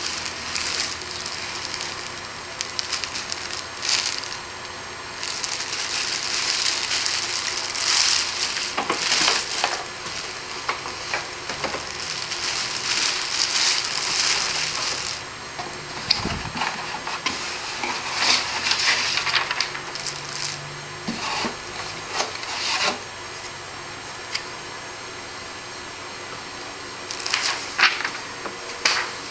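Clear plastic bag crinkling and rustling in irregular bursts as a jacket is worked out of it. There is a quieter stretch a few seconds before the end, then sharper crackles.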